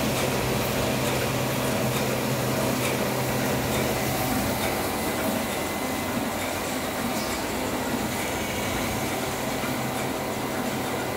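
Ryobi two-colour small offset press running, a steady mechanical whir with a constant low hum from its motors.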